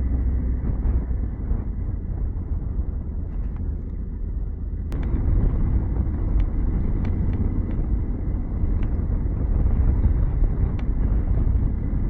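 2021 Honda Africa Twin's 1084 cc parallel-twin engine running under way with a dense low rumble of engine, tyre and wind noise. From about five seconds in, a handful of short sharp ticks.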